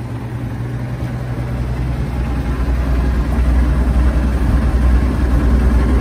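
A 1946 Chevrolet 3100 pickup's straight-six engine idling steadily, growing gradually louder. It runs smoothly now that the soft fuel hose from the mechanical fuel pump to the carburetor has been replaced with a hard line; the owner takes the hose to have been part of the problem.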